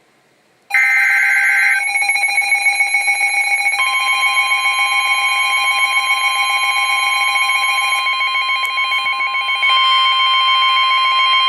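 Weather alert radio sounding a severe thunderstorm warning. Steady electronic alarm tones with a fast pulsing beep start under a second in. About three seconds in, the steady NOAA Weather Radio warning tone joins and holds.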